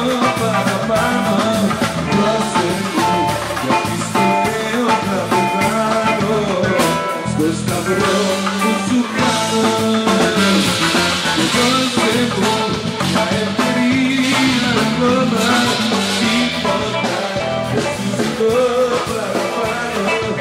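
A live band playing a Greek popular song, a male singer on microphone over electric guitar, keyboard and drum kit, amplified through a PA.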